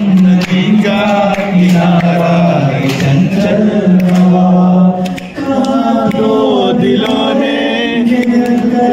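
Singing through microphones and a PA system: a slow melody with long held notes, with a short break about five seconds in before the voice comes back.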